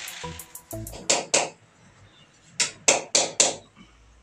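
Rotary hammer drill boring into a plaster ceiling dies away within the first half second. Then come sharp, evenly spaced knocks, two and then a run of four at about four a second, over background music with a beat.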